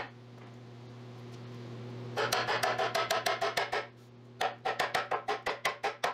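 Rapid back-and-forth rubbing strokes on wood, about five a second, in two runs with a pause between, over a steady low hum.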